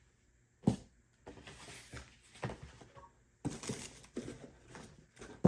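Bicycle crankset parts being handled: a sharp knock, then rustling and crinkling with a few small knocks, and another sharp knock at the end.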